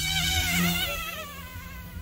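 OMPHobby M2 Explore RC helicopter's electric motor and rotors whining, a high buzzing whine that wavers up and down in pitch, loudest in the first second and then fading.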